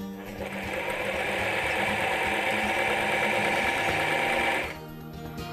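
Janome 381 portable zigzag sewing machine running steadily for about four seconds, then stopping abruptly, as it stitches the third step of a buttonhole.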